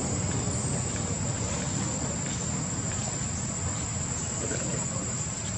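Outdoor ambience: a steady, thin, high-pitched insect drone over a low rumbling background.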